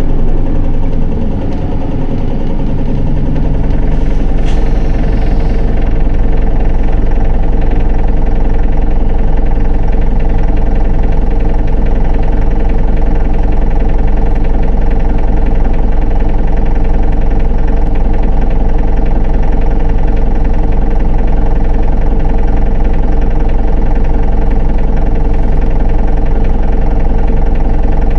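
Isuzu Erga city bus's diesel engine running at a steady speed, heard from inside the bus, with a deep steady drone that settles in about three seconds in.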